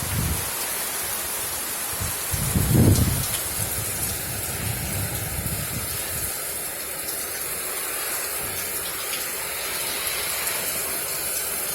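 Steady rain of a tropical storm, with wind gusts buffeting the microphone as a low rumble, loudest about three seconds in.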